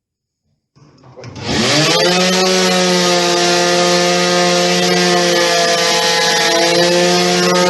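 Electric sander switched on about a second in, its motor spinning up with a rising whine, then running steadily with a hiss of abrasive paper on the surface as filler and paint are sanded back.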